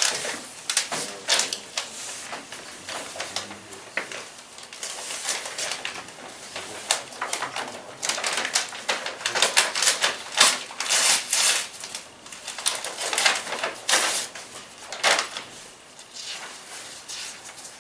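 Paper rustling and crackling in irregular bursts as a sealed bid envelope is opened and its documents are handled and leafed through.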